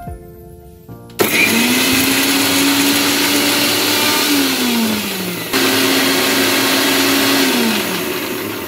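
Havells mixer grinder's motor grinding grated coconut with pepper, cumin, green chilli and curry leaves into a paste in its steel jar, in two runs. It starts about a second in, runs steadily, then winds down with a falling whine. It starts again and winds down once more near the end.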